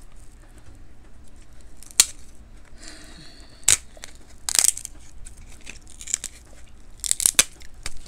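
King crab leg shell being cracked and broken apart by hand while the meat is pulled out: a few short, sharp cracks and snaps, one about two seconds in, others near four seconds, and a quick cluster near seven seconds.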